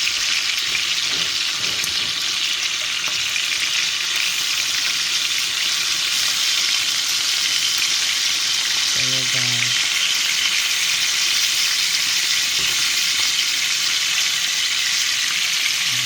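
Seasoned chicken pieces frying in a hot pot as they brown, a steady sizzle throughout. A voice cuts in briefly about halfway through.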